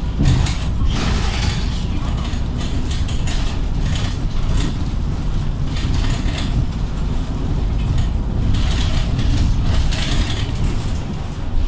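Inside a Mercedes-Benz Citaro G C2 articulated bus under way: a steady low engine and road rumble, with frequent short clicks and rattles from the cabin fittings and panels.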